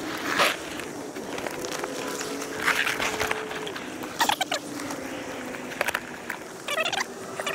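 Knocks, scuffs and clicks as a person climbs into an inflatable kayak and settles into the seat, with a steady low hum underneath.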